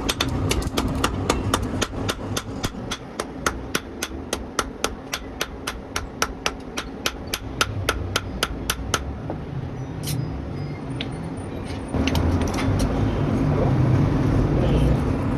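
Hammer blows on steel at an anvil while a blade is forged: a quick, steady rhythm of about four strikes a second for some nine seconds, then a few scattered strikes, over a steady low rumble.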